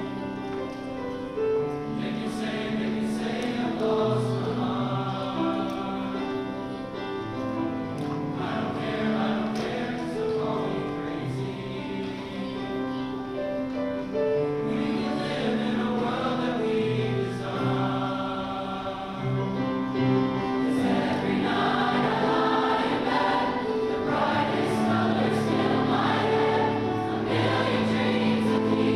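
Large mixed-voice high school choir singing in harmony, holding long chords that change every second or two, growing louder in the second half.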